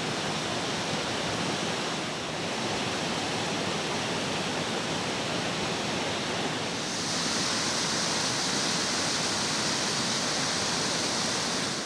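Steady rushing of running water, with a brighter high hiss joining about seven seconds in.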